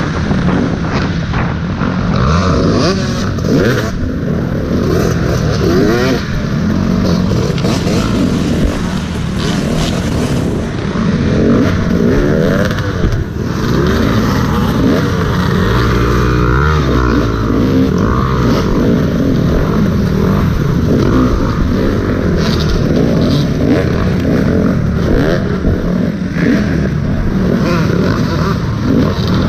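Dirt bike engine revving up and down repeatedly as it is ridden hard in an off-road race, heard from the rider's helmet camera.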